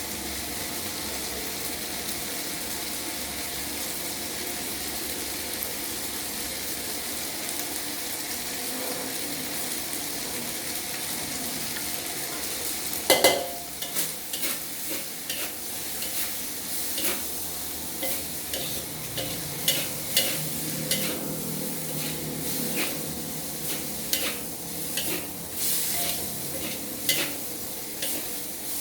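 Fried rice sizzling in a hot wok with a steady hiss; about thirteen seconds in a metal spatula starts clanking and scraping against the wok, striking repeatedly and irregularly as the rice is stirred and tossed.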